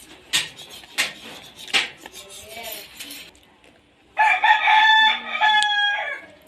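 A rooster crows once, a long pitched call of about two seconds in the second half. Three sharp clicks or knocks come in the first two seconds.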